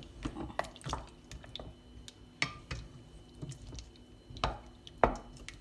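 Wooden spoon stirring beef chunks and cream in a stainless steel pot: irregular knocks and scrapes of the spoon against the pot with wet squelching, the loudest knocks near the end.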